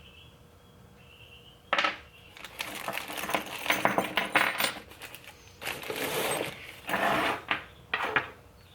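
Small metal parts from a steering column rebuild kit clinking and rattling as they are handled, beginning with a sharp clack about two seconds in and going on in irregular spells of clatter.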